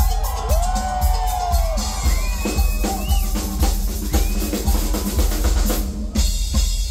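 Live drum kit playing a fast, loud pattern of bass drum and snare hits through a concert sound system, with a brief break about six seconds in before the drumming resumes.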